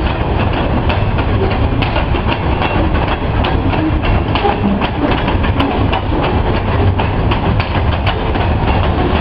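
Freight train cars rolling past: a steady, loud rumble with frequent sharp clicks of the wheels on the rails.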